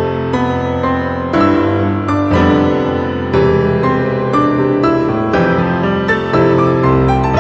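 Background music: a slow piano piece, with notes and chords struck about once a second and left to fade.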